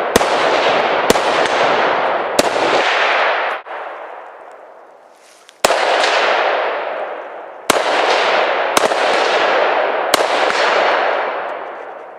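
AR-style rifles firing seven single shots at uneven intervals, some less than a second apart and one after a gap of about three seconds. Each shot is followed by a long rolling echo that fades over one to two seconds.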